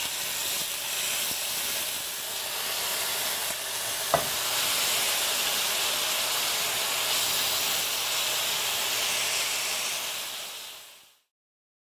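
Marinated beef steaks frying in oil in a hot pan: a steady sizzle, with one sharp click about four seconds in. The sizzle fades out shortly before the end.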